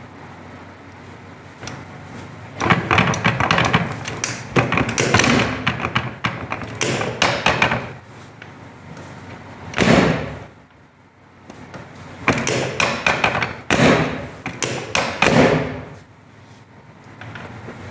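Chiropractic drop table: its padded sections thump and clack as they drop under the practitioner's thrusts. The sound comes in several runs of rapid knocks, with one heavy thump about ten seconds in.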